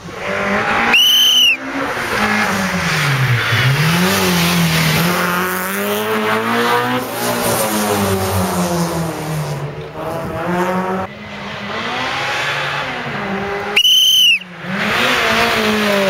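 Rally cars driving hard past spectators, their engines revving up and down through gear changes. There are two short, loud tyre squeals, about a second in and near the end.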